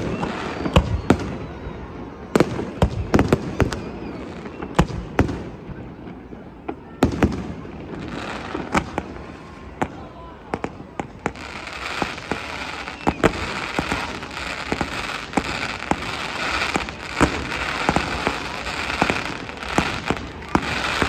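Fireworks display: aerial shells bursting in a string of sharp bangs, several a second at times. From about halfway a dense, steady hiss fills in under the bangs.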